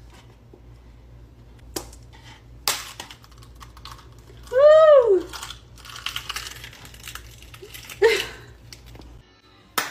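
A few sharp taps and knocks as an egg is cracked against a head, with a toddler's drawn-out rising-then-falling voiced cry about halfway through, the loudest sound, and a short sharp gasp near the end.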